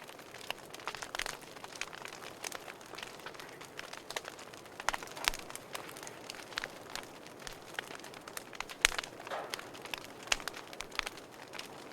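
Wood fire burning in a fireplace, crackling with irregular sharp pops and snaps over a soft hiss; the loudest pop comes about three seconds before the end.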